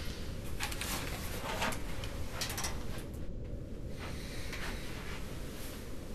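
Scattered small knocks, clicks and rattles of a corded desk telephone being lifted and handled, about eight in all with a short pause a little past halfway, over a steady low hum.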